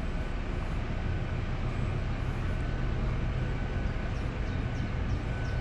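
A steady low rumble, with a small bird chirping in short, quick, falling notes from about four seconds in.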